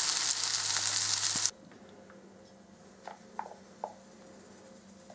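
Syrniki frying in a pan of hot oil, sizzling with a loud, even hiss that cuts off abruptly about a second and a half in. After that it is quiet, with a few faint clicks against a glass bowl.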